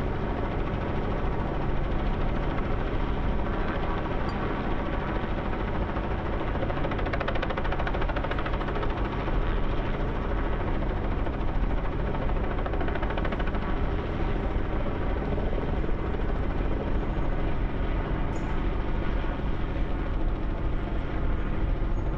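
Steady helicopter rotor and engine noise, an even drone with a constant pitch throughout.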